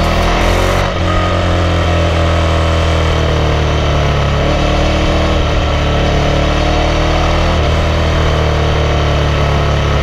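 KTM 1190 Adventure's V-twin engine under way, heard from the rider's seat. It runs at a fairly steady pitch with small rises and falls, dipping briefly about a second in.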